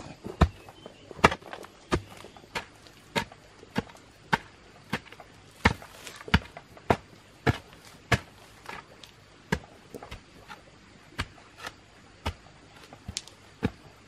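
A short-handled digging tool chopping into dry, stony soil in a steady rhythm of sharp strikes, about three every two seconds.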